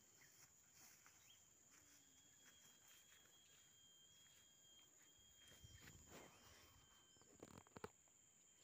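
Near silence with a faint, steady, high-pitched insect drone. Soft rustling comes a little past halfway, and a few sharp clicks near the end.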